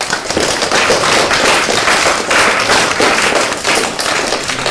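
Audience applauding a speaker who has just finished a talk: many hands clapping at once in a dense patter that starts abruptly and begins to die down near the end.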